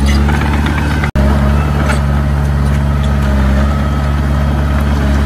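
Heavy diesel engine of construction machinery running steadily at an even low pitch. The sound cuts out for an instant about a second in.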